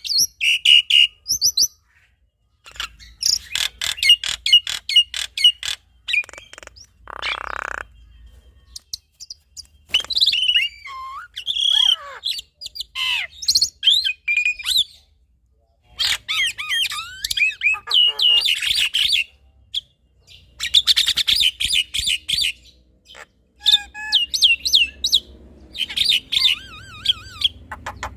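Black-winged myna and Javan myna singing in a varied duet: bursts of fast rattling chatter mixed with whistled up-and-down notes and harsh squawks, broken by short pauses.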